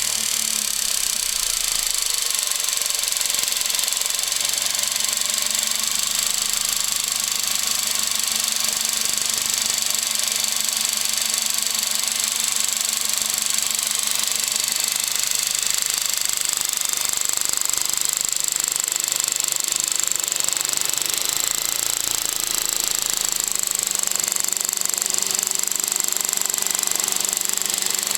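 VW Golf VI 1.2 TSI engine idling just after starting, with a steady metallic rattle: the timing chain rattling, a known fault on TSI engines.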